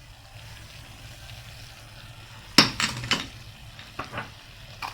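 Cuttlefish pieces, onion and peppers sizzling softly in oil in a pan, with a few sharp clinks of a metal spoon against the pan a little past halfway and again near the end as spices are added.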